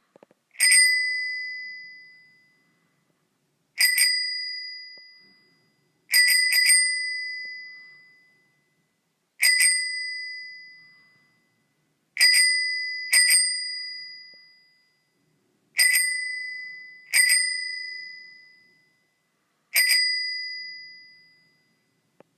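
Bicycle bell rung again and again, as single dings and quick double dings. Each ring starts sharply with a bright metallic tone and dies away over about two seconds.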